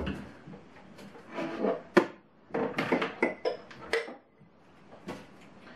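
Rummaging in kitchen cupboards: dishes and containers clinking and knocking against the wooden shelves, with a sharp knock about two seconds in and several smaller clinks after it.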